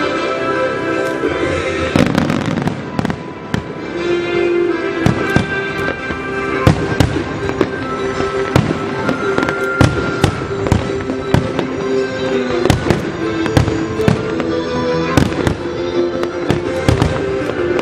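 Aerial fireworks shells bursting in many sharp, irregular bangs, with music playing steadily underneath.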